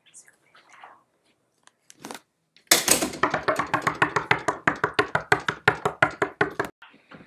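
A rapid, evenly spaced run of loud knocking clicks, about eight a second, starting nearly three seconds in and stopping abruptly about four seconds later.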